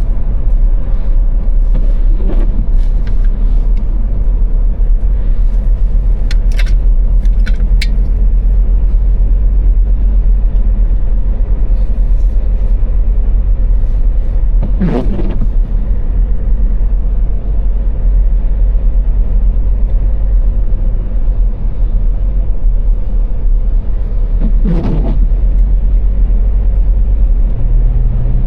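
Car driving at motorway speed on the Autobahn: a steady, loud low rumble of road and engine noise. Two brief louder rushing sounds come about halfway through and near the end.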